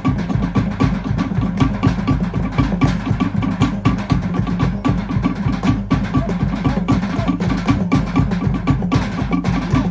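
Fast Polynesian drumming for a fire knife dance: wooden log drums and a deep drum beating a rapid, driving rhythm of many strikes a second.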